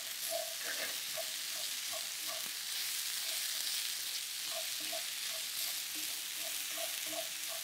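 Mushrooms, chestnuts and grated pumpkin sizzling as they sauté in a frying pan, stirred with a wooden spatula in short, repeated scraping strokes.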